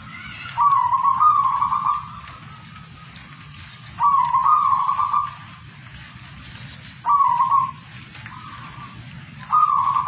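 Zebra dove (perkutut) singing its cooing song: four loud phrases of quick, rolling coos, about two to three seconds apart, the first the longest.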